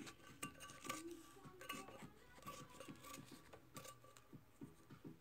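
Scissors snipping fabric as excess wrap is trimmed from a tumbler's edge: a run of faint, irregular snips.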